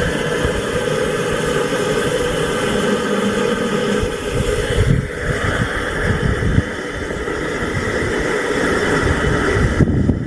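A motor running steadily, with low rumbling buffets, like wind on the microphone, under it.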